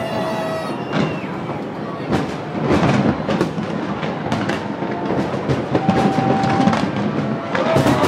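Fireworks bursting in a rapid series of bangs and crackles over crowd noise. A steady horn note sounds for about a second near 6 s, and another horn starts near the end.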